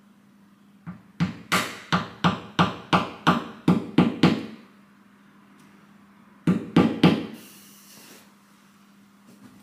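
Hammer blows, about ten in a row at roughly three a second, each ringing briefly, then three more a couple of seconds later.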